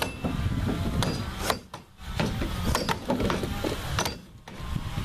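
Racing axes biting into standing-on logs in an underhand chop: several choppers' strikes overlapping in an irregular run of sharp wooden thwacks, about three a second, with two brief lulls.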